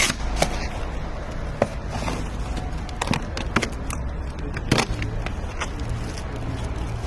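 Scattered sharp knocks and clacks over a low rumble, with a steady low hum joining about five seconds in.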